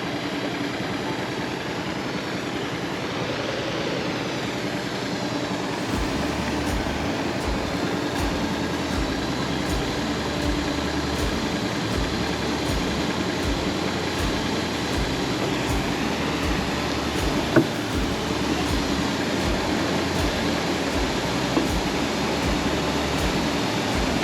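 A small boat's motor running steadily under way. From about six seconds in there is a regular low thudding, and a single sharp knock comes near the middle.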